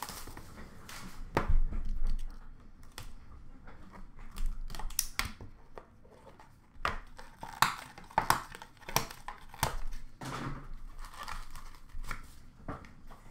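Hands handling and opening a cardboard trading-card box: irregular rustling and crinkling of cardboard and packaging, with scattered taps and scrapes.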